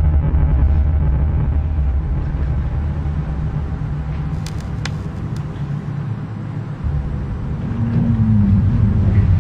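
A low rumbling drone with a faint steady hum, from a designed soundtrack. A few sharp clicks come about halfway. The deep rumble drops out for a moment, then comes back suddenly, and a short falling tone sounds near the end.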